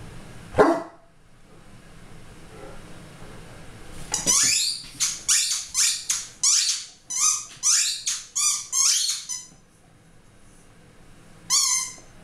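A young dog barking during play: one sharp bark, then a quick run of about ten high-pitched barks, roughly two a second, and one more near the end.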